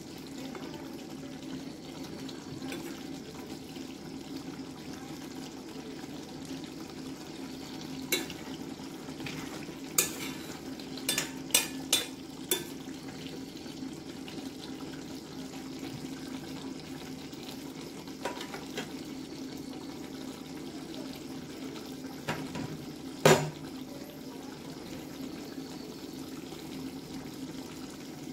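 Chicken and jackfruit curry simmering in a cast-iron kadai, a steady bubbling hiss, while a spatula stirs it and knocks against the pan several times in the middle, the loudest knock near the end.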